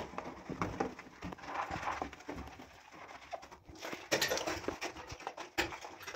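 A wet sponge scrubbing and squeaking against a porcelain toilet and a stainless-steel toilet-paper holder, in irregular strokes. Cleaning liquid is squeezed out onto the holder about four seconds in, and the scrubbing gets livelier after it.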